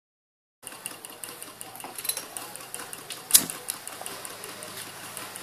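Soda-can alcohol stove burning, with irregular light ticks and clicks over a faint steady hum, and one sharp click about three seconds in.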